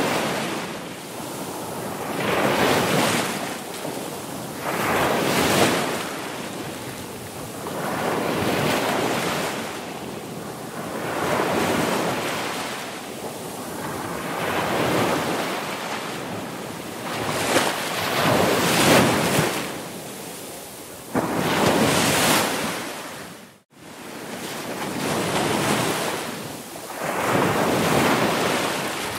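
Ocean surf: waves breaking and washing in, the rush of water swelling and falling back every two to three seconds. There is a brief sudden cut to silence about two-thirds of the way through.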